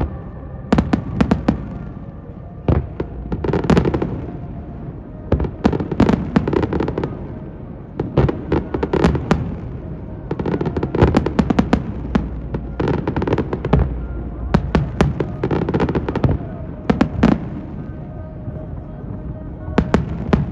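Fireworks display: aerial shells bursting in rapid clusters of sharp bangs and crackles, pausing briefly, with one last cluster near the end.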